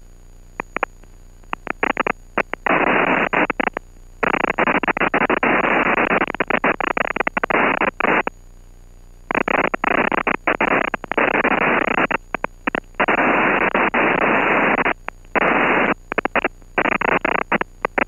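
Bursts of hissing static over the aircraft's radio/intercom headset audio, switching on and off abruptly for a second or a few seconds at a time, with short clicks between bursts.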